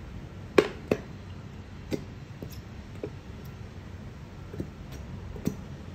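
Plastic bottle of washable glue being squeezed by hand, giving irregular sharp clicks, about seven of them, the loudest two about half a second and a second in.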